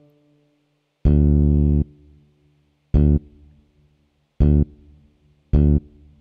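Fat Fingers sampled electric bass sounding a low D four times as the notes are entered one by one: a longer note about a second in, then three short plucks spaced about a second and a half apart.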